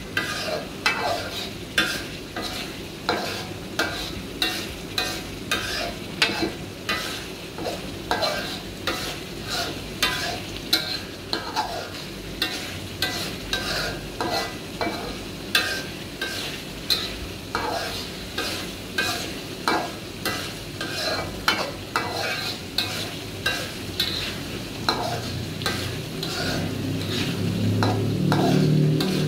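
A metal spoon scraping around a wok in a steady rhythm, a little more than one stroke a second, as it stirs thick chili paste for sambal tumis. The paste sizzles in the oil underneath while it is fried down until fragrant and reddish.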